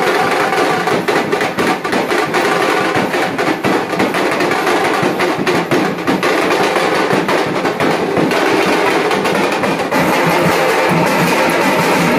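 Procession band music with dhol drums beating under a steady, held melody. The drum strikes thin out about eight seconds in.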